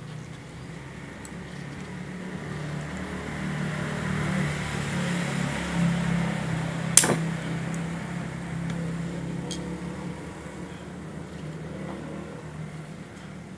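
A low, steady motor-like hum that swells through the middle and fades again, with one sharp click about seven seconds in as a brass mainspring barrel is handled, and a few faint ticks.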